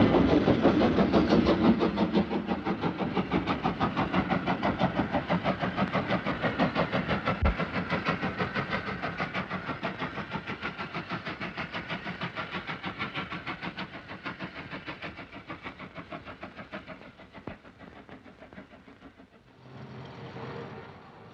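Train running along the rails, its wheels clattering over the rail joints in a fast, even rhythm that slowly fades away as it draws off into the distance.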